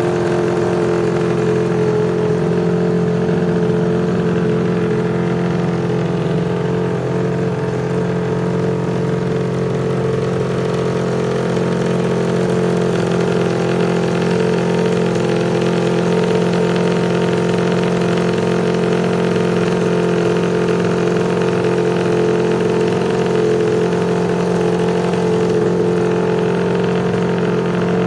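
Ducati Desmosedici MotoGP racing V4 engine idling steadily and loud, holding an even pitch with no revving.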